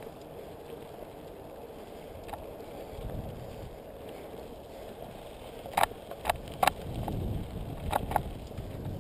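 Mountain bike riding fast over a dirt singletrack: steady tyre and rolling noise, low rumbles over rough ground, and a cluster of sharp clacks from the bike rattling over bumps from about six to eight seconds in.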